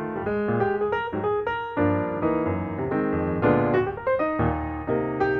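Piano music: a continuous flowing run of notes and chords.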